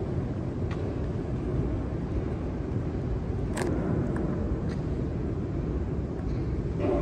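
Steady low rumble of an underground metro station's ambience, with no train in the station. A single sharp click sounds about three and a half seconds in.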